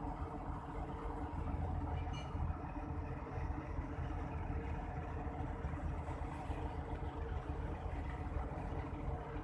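A diesel engine running steadily at idle, a low, even hum with no hammer blows.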